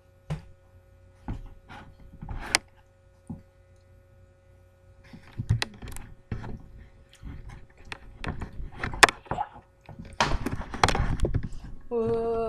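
Scattered knocks and thuds with rustling handling noise, denser from about ten seconds in, and a short voiced 'oh' at the very end.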